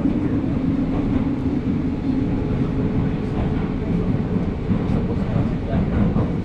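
Commuter train running, heard from inside the carriage: a steady rumbling rail noise with a low hum that eases after about two seconds.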